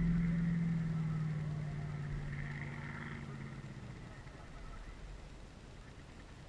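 Drag-racing car's engine fading into the distance, its steady low note dying away about four seconds in and leaving a faint outdoor hiss.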